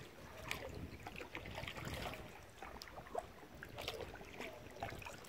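Kayak paddle dipping and water splashing and dripping around the hull as the boat glides over calm water, in scattered short splashes over a low rumble.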